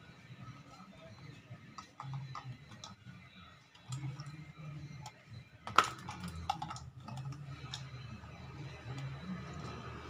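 Scattered light plastic clicks and taps from a Toyota Vios Gen1 fuel pump module being handled while its fuel pump wiring connector is worked loose with a screwdriver, with one sharper click about six seconds in.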